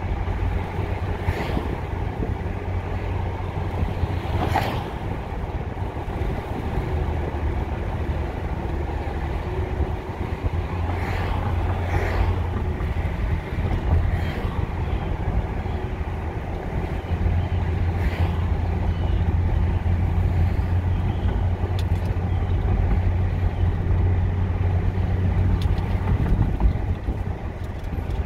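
Inside the cabin of a 1997 Mercedes-Benz E420 driving at low speed: a steady low rumble from its 4.2-litre V8 and the tyres on the road, with a few brief clicks now and then.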